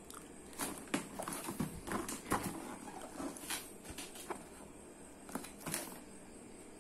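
Cardboard Adidas shoe box handled and turned over in the hands: irregular light taps, rubs and scrapes of fingers on the cardboard. They stop about six seconds in.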